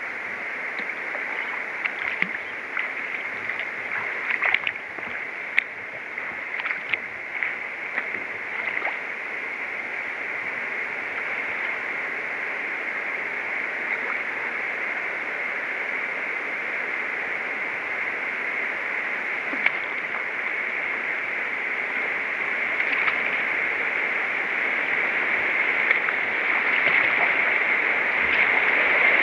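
Rushing water of a Class III river rapid, growing steadily louder as the kayak draws near it, with a few light splashes and drips in the first several seconds.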